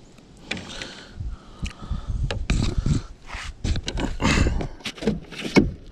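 Irregular knocks, clicks and rustling from a freshly caught bass being handled and unhooked in a landing net aboard a plastic kayak, with a few low thumps.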